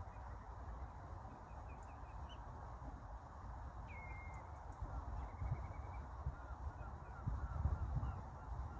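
Faint estuary birds calling over a steady low rumble and hiss. About four seconds in comes a whistle that drops in pitch and then holds, and a quick run of short notes follows, with scattered chirps around them. The rumble swells near the end.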